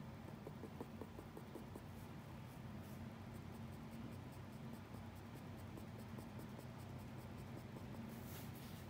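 Pencil tip scratching faintly on paper in many short strokes as a portrait is shaded, with a brief stronger stroke near the end, over a steady low hum.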